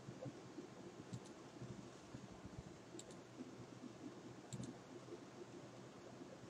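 A few faint computer mouse clicks, some in quick pairs, over a low steady hum.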